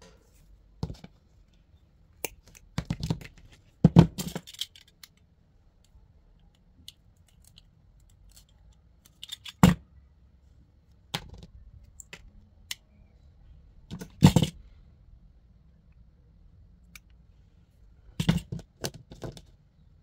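Irregular short clicks, snaps and knocks of small parts and hand tools being handled and worked, in scattered clusters; the loudest come about four seconds in, near the middle and near the end.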